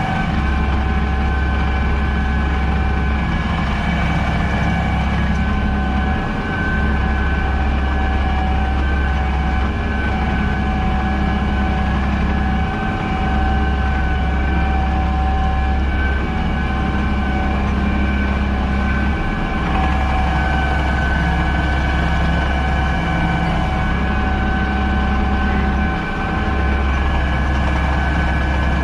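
Fendt 828 Vario tractor running steadily under load, heard inside the cab, a deep drone with a steady high whine over it. The low drone drops away briefly about every six to seven seconds.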